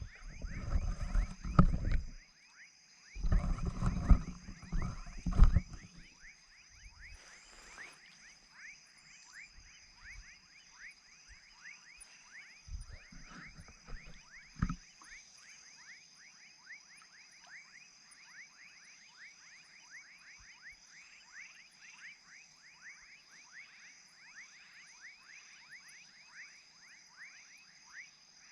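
Evening chorus of frogs, toads and crickets: a steady high insect trill with many short falling frog calls repeating densely over it. Loud low rumbling bumps break in during the first six seconds, and there is one thump about halfway.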